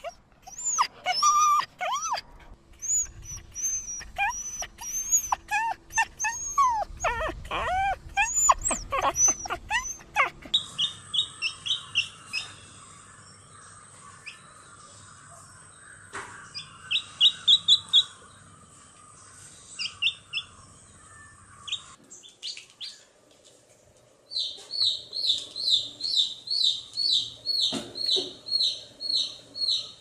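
Puppies whimpering and yipping in high, wavering cries. About ten seconds in this gives way to a baby chick peeping: scattered short chirps at first, then a steady run of peeps about two a second near the end.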